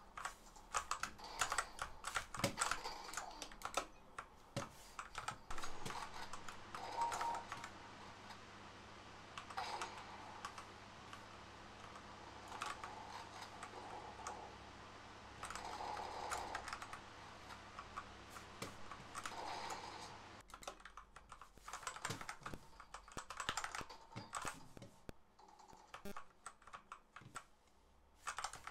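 Typing on an Altec Lansing ALGK8404 mechanical keyboard with K-Pro Red linear switches: quick runs of key presses with short pauses between them.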